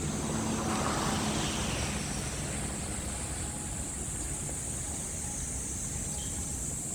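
Outdoor street ambience: a steady low traffic rumble with a constant high hiss, slightly louder in the first couple of seconds as something passes.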